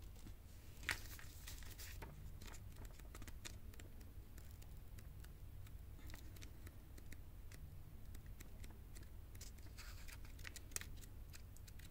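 Faint scratching and rustling with scattered light clicks from oracle cards and a paper guidebook being handled, over a low steady hum.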